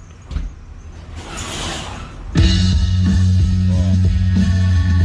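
Car audio system with a subwoofer starting to play a rock song loudly about two and a half seconds in, heavy bass under guitar. Before it, a click and a short rustle as a track is being picked.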